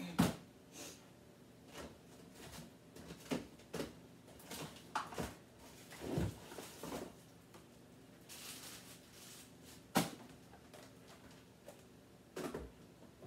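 Containers and packages knocking and rustling as they are moved around inside an open refrigerator, with a sharp clunk near the start and another about ten seconds in.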